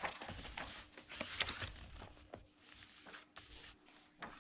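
Pages of a thick paperback book being turned by hand: paper rustling and flapping, with sharp crackles of the pages, busiest in the first two seconds and quieter after.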